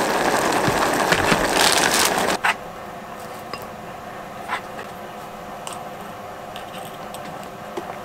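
Pot of ramyeon broth bubbling at a boil, a steady hiss that cuts off about two and a half seconds in. After that it is quiet, with a low steady hum and a few light clicks and scrapes of a spoon on a plastic plate and food container.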